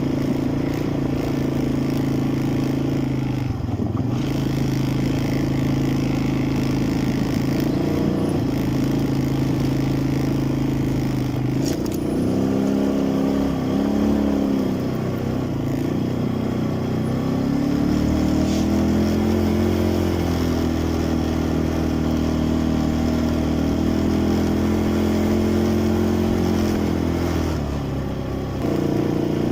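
ATV engine running while riding, its pitch wavering up and down with the throttle around the middle, then holding a lower, steady note until it changes again near the end.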